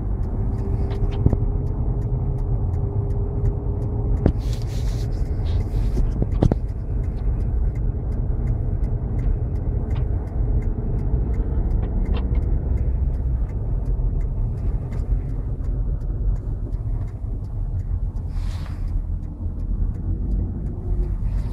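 Car heard from inside the cabin, its engine running with steady low road rumble, and a few light knocks.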